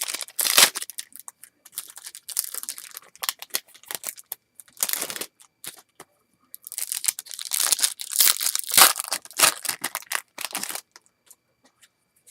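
Foil wrapper of a baseball card pack being torn open and crinkled, with cards rustling as they are handled, in several bursts of rustling.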